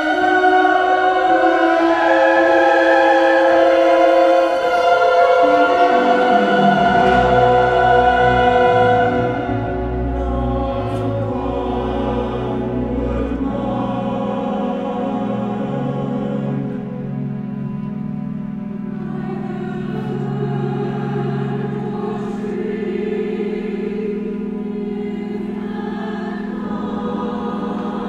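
Mixed choir singing a classical choral piece with orchestral accompaniment of strings and piano. Loud at first, it falls quieter about nine seconds in, with low bass notes sounding beneath the voices for a while.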